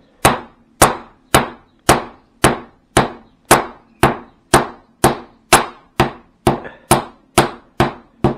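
Long wooden rolling pin beating a sheet of tourtière pastry dough on a table: a steady run of sharp whacks, about two a second and slightly quickening toward the end. This is the twelfth and last round of beating the dough.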